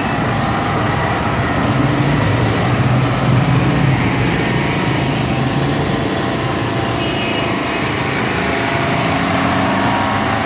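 Busy street traffic: car, motorcycle and auto-rickshaw engines running close by in a steady din, a little louder about two to four seconds in.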